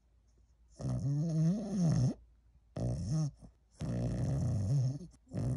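French bulldog snoring: a string of long, low snores with short pauses between them.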